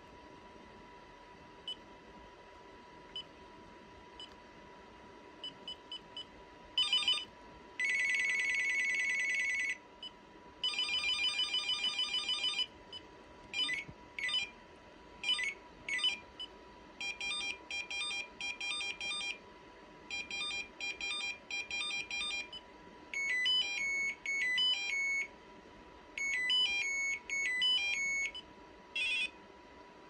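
RadioShack 43-3898 cordless phone handset playing its built-in ringtones one after another. A few short faint beeps come first, then about seven seconds in a run of different electronic ringer patterns: a buzzy trill, warbling trills, quick chirps, pulsed beeping and simple stepped melodies, each a second or two long with short gaps between.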